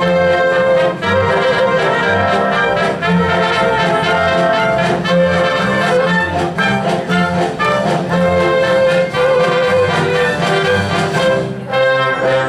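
Symphony orchestra playing, with brass to the fore over a steady beat in the bass.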